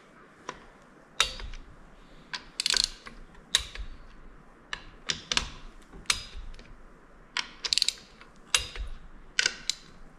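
Click-type torque wrench ratcheting and clicking as bolts on a Powerglide transmission are torqued to 18 ft-lb in a star pattern. Sharp metallic clicks come about once a second, some in quick clusters.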